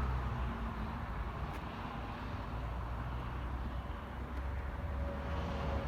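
Steady low outdoor rumble, with a faint steady hum coming in near the end.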